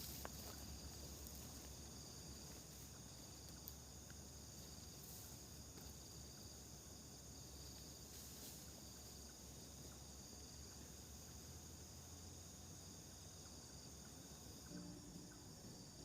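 Faint night insect chorus: crickets trilling steadily in several high pitches over a low rumble.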